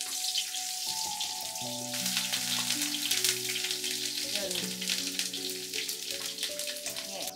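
Hot oil in a wok sizzling and crackling as chopped garlic, ginger and turmeric fry in it. The sizzle starts sharply at the start and runs dense and even.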